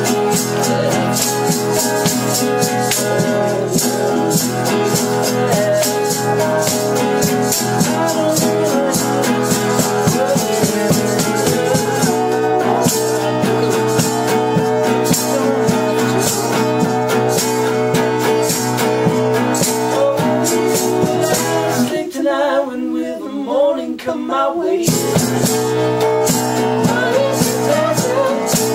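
Live acoustic band performance: acoustic and electric guitars strummed, a maraca shaken in time, and a singing voice. About 22 seconds in the instruments stop for about three seconds, leaving a lone wavering voice, before the band comes back in.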